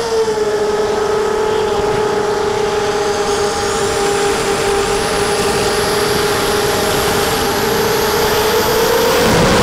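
Miniquad's brushless motors (DYS 1806 2300kv) and 5-inch propellers whining in flight at a steady pitch. The pitch dips slightly just at the start and rises a little near the end.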